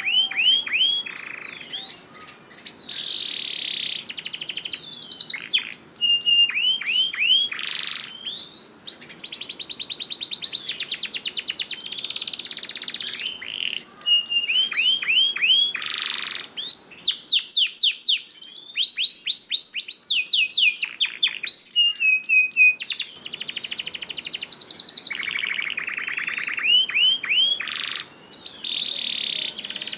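Domestic canary singing a long, unbroken song of fast trills, rapidly repeated rising and falling whistled sweeps, and buzzy rolls, changing from one phrase type to the next every couple of seconds.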